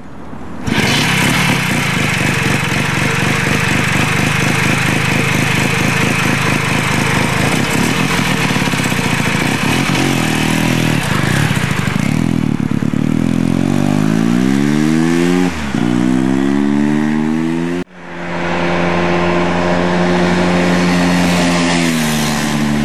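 Hercules W-2000's 294 cc Sachs single-rotor Wankel engine running with a steady pulsing note, then revving up in rising steps with a brief dip as the motorcycle pulls away through the gears. After an abrupt break it runs on at a steady note that drops slightly near the end.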